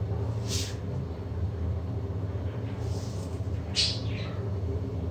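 Sugar poured from a plastic jar into its lid, making brief dry hissing sounds: a faint one about half a second in and a louder one near four seconds. A steady low kitchen hum runs underneath.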